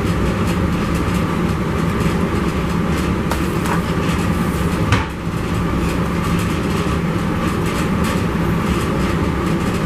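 Steady, loud mechanical rumble and hum with no rhythm, and one sharp click about five seconds in.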